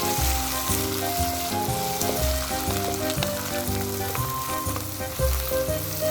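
Sliced onion and a whole garlic clove frying in olive oil in a pan, with a steady sizzle. Background music with changing notes plays under it.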